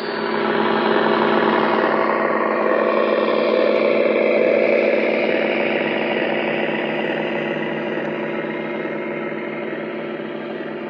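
Lionel O gauge Union Pacific M-10000 model train running on the track: a steady motor whir and wheel noise with a hum. It comes up suddenly, is loudest for the first few seconds, then slowly fades as the train moves away.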